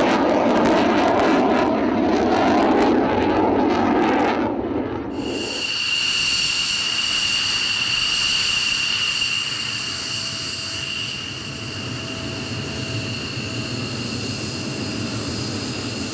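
F-16 fighter jet engine running loud in flight, a rushing noise with a rapid crackle; about five seconds in it changes abruptly to the steady high-pitched whine of an F-16 taxiing on the runway.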